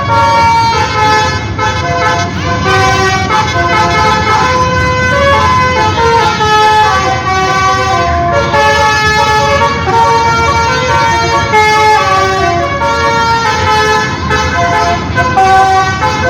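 Basuri 'telolet' multi-tone bus horn playing a melody of held notes that step from pitch to pitch every fraction of a second, over the low rumble of the bus engine.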